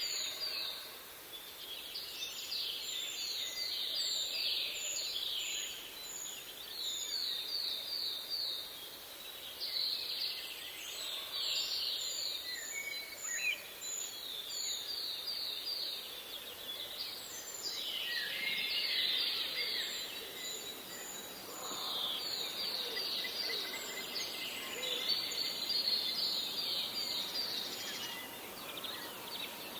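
Birds singing: a busy chorus of high, quick trilled phrases repeating every second or two over a steady hiss.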